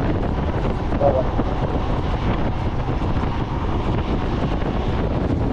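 Wind rushing over the microphone of a moving motorcycle, a steady noise with engine and road noise underneath.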